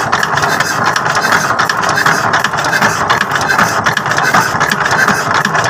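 Single-cylinder S1100 diesel engine, converted to direct injection with a long injector nozzle, running steadily with a rapid, even diesel knock.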